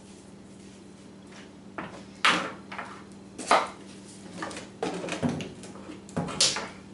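A metal measuring spoon and a salt canister being handled on a kitchen counter: a handful of sharp clicks and knocks starting about two seconds in, over a faint steady hum.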